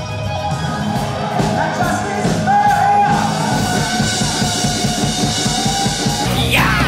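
Hair metal rock band playing: drum kit with electric guitar and some singing, a held high note about two and a half seconds in, and a quick falling glide near the end.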